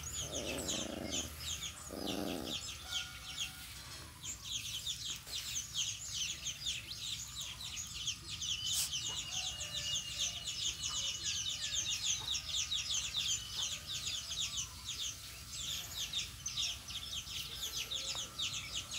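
Many small birds chirping in a dense, rapid, high chatter, with two short low calls in the first couple of seconds.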